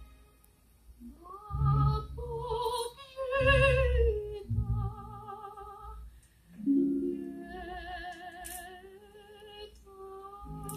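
Woman singing opera-style through a microphone: high sustained notes with wide vibrato in phrases, ending in one long held note, over quiet instrumental accompaniment.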